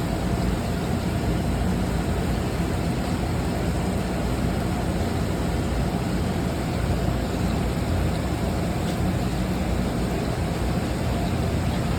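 Steady, even roar of commercial kitchen equipment and ventilation, with no distinct knocks or changes.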